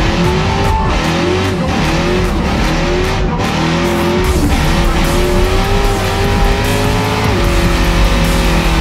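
Lifted pickup truck in a truck tug-of-war, its engine held at high revs and its tires spinning and squealing on pavement under the load of the rope, a wavering squeal over a steady engine rumble.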